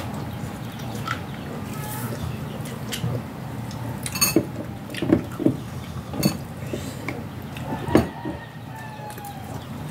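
Spoon and fork clinking against plates and bowls at a meal: a handful of sharp clinks in the second half, the loudest near the end, over steady low background noise.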